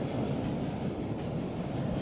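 Ocean surf breaking and washing up the beach: a steady rushing noise.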